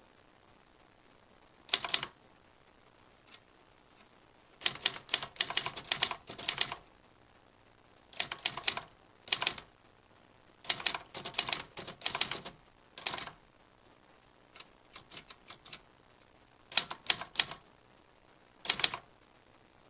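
Typewriter keys being typed in irregular bursts of rapid clicks, with short pauses between the bursts.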